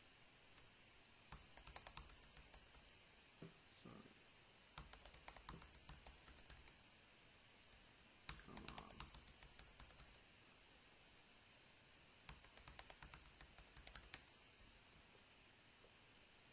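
Faint computer keyboard typing in four short runs of quick key clicks, each lasting a second or two.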